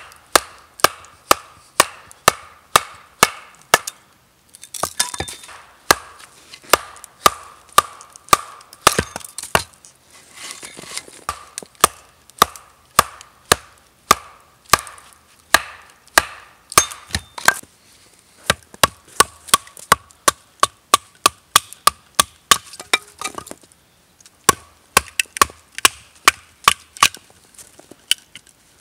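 Axe chopping into a green log, hewing it down to shape a wooden maul. The strikes come in a steady run of about two a second, with short pauses twice.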